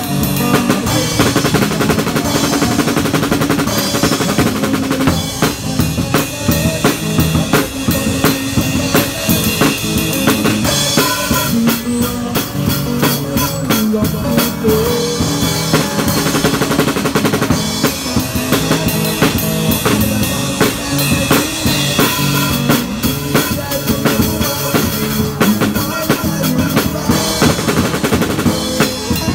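Drum kit played continuously, snare, toms and bass drum with Sabian AAX cymbals struck throughout, together with an electric guitar played through a small amplified speaker.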